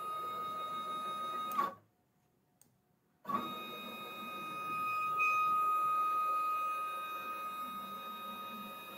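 Sienci LongMill CNC's X-axis stepper motor, wired to the Z-axis controller output as a test, driving the router carriage along the gantry: a steady whine with a high tone. The move stops about 1.7 seconds in, and after about a second and a half of quiet a longer move starts.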